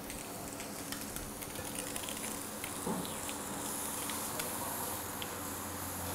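Turbot frying slowly on one side in oil in a stainless frying pan, a faint steady sizzle with a few light clicks of a metal utensil in the pan.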